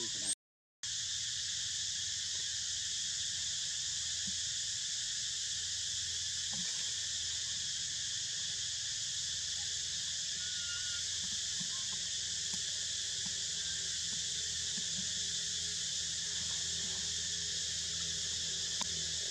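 Steady, high-pitched chorus of insects, a dense even buzz that never changes, with a brief dropout of about half a second near the start.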